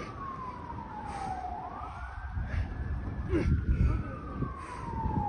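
An emergency-vehicle siren wails: its pitch slides slowly down, sweeps quickly back up about two seconds in, then slides slowly down again. A low rumbling noise runs underneath.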